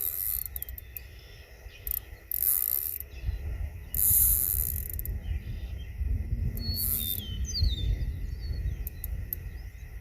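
Fishing reel being cranked in short spells while a hooked bluegill is reeled in, its gears giving a ratcheting rattle.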